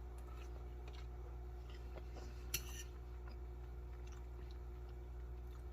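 Faint chewing of ramen noodles, with small mouth clicks and one short, sharp, hissy sound about two and a half seconds in, over a steady low hum.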